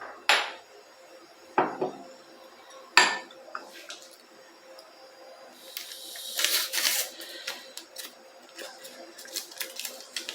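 Dishes and cutlery being handled: three sharp knocks in the first three seconds, then a burst of rattling about six seconds in, followed by light scattered clinks.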